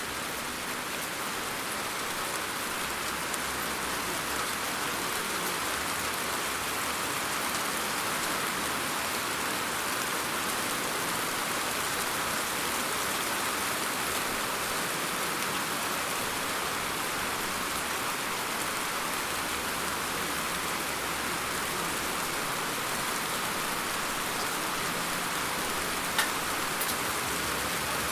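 Steady rain falling, an even continuous hiss, with one sharper drop or tap standing out near the end.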